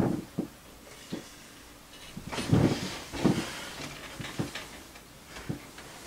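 Harbor Breeze Lynstead ceiling fan running steadily, with a few irregular knocks and clicks over it. The loudest are a rattling cluster about two and a half to three and a half seconds in.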